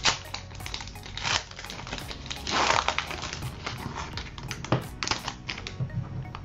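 Foil Pokémon booster pack being crinkled and opened by hand, in short bursts of crackling, with a longer, loud burst about two and a half seconds in; soft background music underneath.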